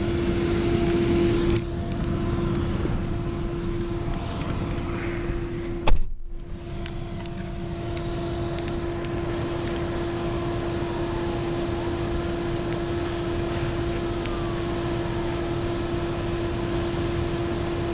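A car running and moving slowly, heard from inside its cabin: a steady engine and road hum. About six seconds in there is one sharp thump, and the sound briefly drops out.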